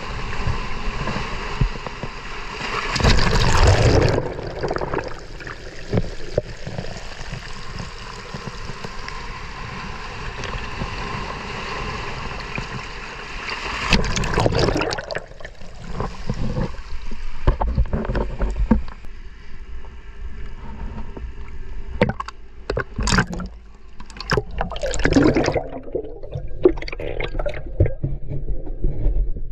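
Water sloshing and gurgling close to the microphone, with two louder surges and a run of sharp clicks and knocks in the later part.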